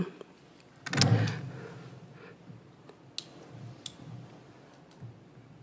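Faint handling noise as a tablet on a table is touched to change the picture: a soft thump about a second in, then a few light clicks and taps.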